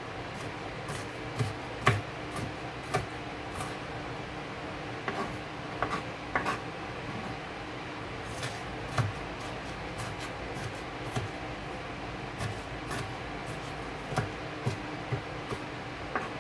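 Kitchen knife chopping onion on a plastic cutting board: irregular knocks of the blade against the board, roughly two a second.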